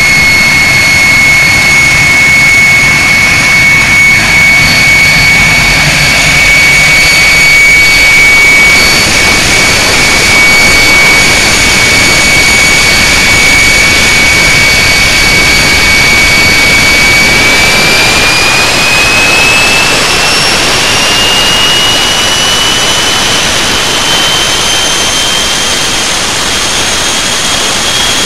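Walter M701-500 centrifugal-compressor turbojet running loudly: a broad jet roar with a steady high whine. About two-thirds of the way in, the whine rises smoothly in pitch as the engine spools up.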